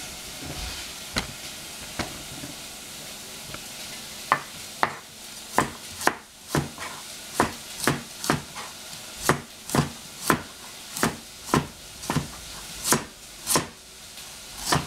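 Chinese cleaver slicing a carrot into rounds on a plastic cutting board: a few single knocks at first, then about two knocks a second from about four seconds in. Under them, a steady faint sizzle of onion frying in a pan.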